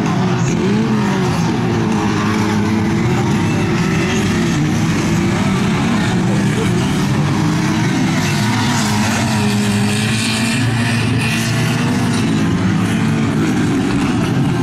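Engines of several dirt-track fun-car racing cars running hard together, their pitch rising and falling with the throttle as they race around the track.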